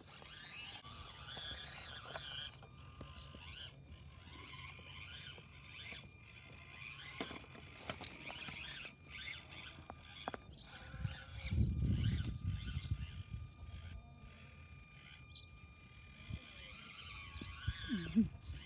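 Micro RC rock crawler's small electric motor and gearbox whining at a steady high pitch that starts and stops with the throttle. Tyres and chassis click and scrape over rock. A brief low rumble comes about midway through.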